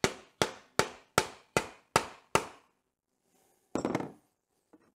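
Hammer blows on metal, seven sharp strikes at an even pace of about two and a half a second, each with a short ring, knocking at a seized water pump to shift it in the engine. A brief clatter of metal follows about four seconds in.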